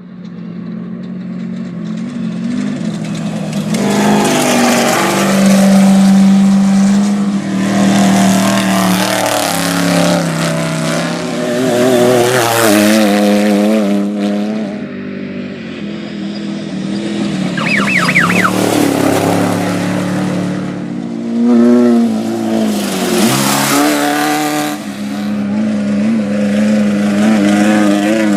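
Off-road race vehicle's engine running hard, its pitch holding steady, then dropping and climbing again with throttle and gear changes. Surges of rushing noise rise and fall over it every few seconds.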